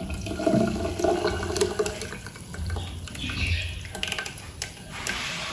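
A thick blended rice-and-milk mixture pouring in a stream into milk in a clay pot.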